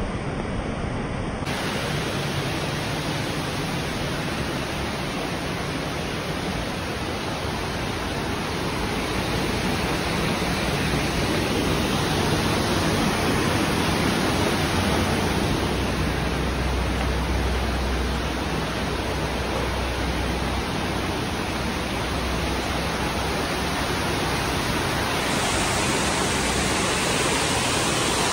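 Water rushing over a dam and down the river, a steady, full rush of white water, with the low rumble swelling a little past the middle.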